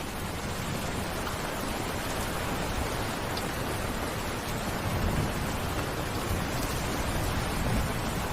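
Steady heavy rain falling, an even dense hiss with a low rumbling undertone and the odd faint drop tick.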